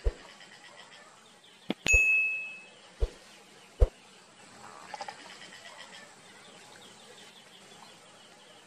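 Sound effects of an animated subscribe button: a few sharp mouse clicks and a bright bell-like ding about two seconds in. Faint high, rhythmic chirping goes on in the background after the clicks.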